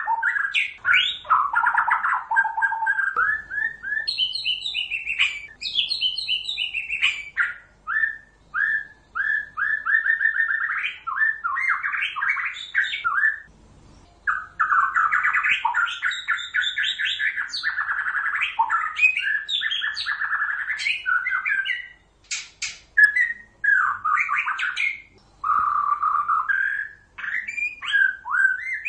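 White-rumped shama singing a long run of rapid, varied whistled and chattering phrases with short pauses between them. This is a song recording of the kind played as a lure to trap shamas.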